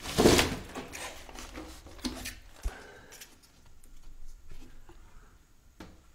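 Movement and camera-handling noise of a person moving about a bare room: a loud rustling scrape at the start, then scattered small knocks and scrapes.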